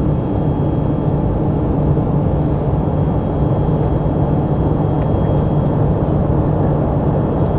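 Steady in-flight cabin noise of an Embraer Legacy 500 business jet climbing: the even rush of airflow and its twin turbofan engines, with a constant low hum underneath.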